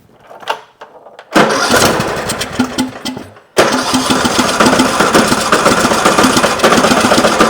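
Briggs & Stratton engine of a Troy-Bilt Pony riding mower being cranked on the starter and firing in two loud bursts, about two seconds and then, after a short break, about four more. It runs only briefly on the fuel fed to it, because the stuck fuel shutoff solenoid lets no fuel through from the tank.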